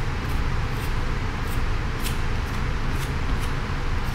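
A steady low rumble throughout, with faint short scratches of a cheap plastic comb dragged through printing ink on a plexiglass plate, about two strokes a second.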